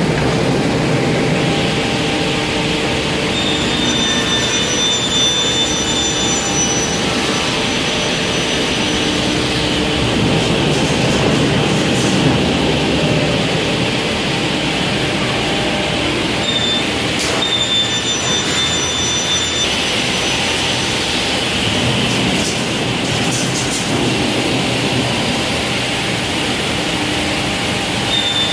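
CUT 70 beam panel saw running, with a loud steady machine noise. A high-pitched whine comes in for a few seconds about four seconds in, again around seventeen to twenty seconds, and once more at the end.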